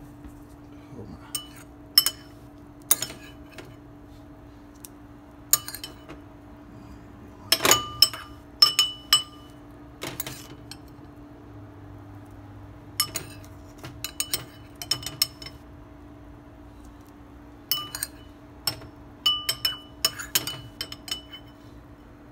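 A metal spoon and a ceramic bowl clinking together in scattered clusters of sharp, ringing clinks, with a steady low hum underneath.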